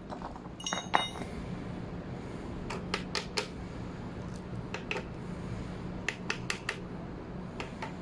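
Light metallic clinks and clicks from brake parts and a hand tool being handled at a motorcycle's rear drum brake while the brake shoes are fitted. The sharpest clink, with a short metallic ring, comes about a second in, and scattered clicks follow in small groups.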